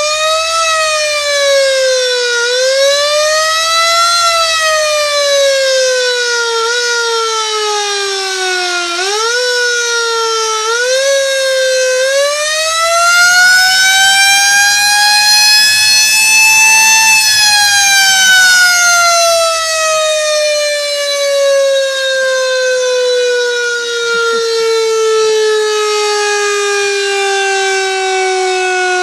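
Electric motor-driven ship's siren wailing loudly, run off a battery. Its pitch rises and falls unevenly in jumps for about the first twelve seconds, climbs to its highest about 17 seconds in, then winds down in a long falling wail.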